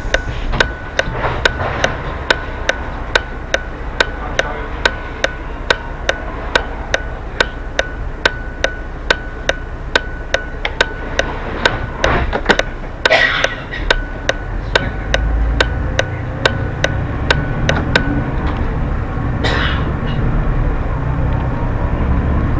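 A bus's turn-signal indicator ticking evenly, about two ticks a second, over the low running of the bus's engine. The ticking stops a few seconds before the end, as the engine note rises with the bus pulling away.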